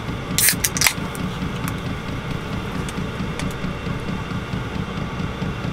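An aluminium can of carbonated mineral water cracked open by its pull tab: a sharp snap and hiss, with a second crack just after, about half a second in. A steady low hum runs underneath.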